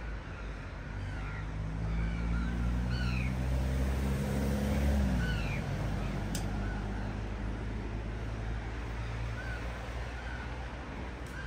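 Small birds chirping over and over, while a motor vehicle's engine hum builds, peaks about five seconds in and drops away as it passes. A single sharp click comes about six seconds in.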